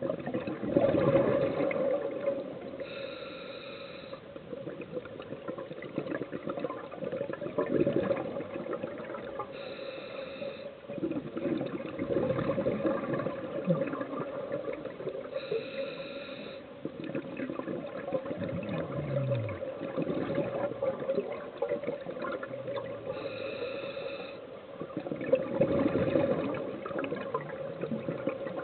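Scuba regulator breathing heard underwater: a short hiss with a whistly ring about every six to seven seconds as air is drawn, between rushing, gurgling surges of exhaust bubbles, over a steady hum.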